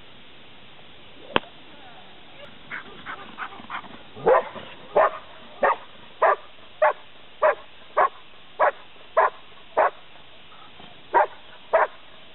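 A German shepherd-type dog barking steadily at a helper in a hiding blind, a little under two barks a second: the bark-and-hold at the blind in protection work. A single sharp crack sounds about a second in, and the barking starts faint a couple of seconds later, turns loud, and pauses briefly near the end.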